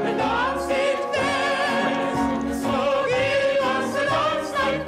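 Operatic soprano singing with a wide vibrato and long held notes, over piano accompaniment.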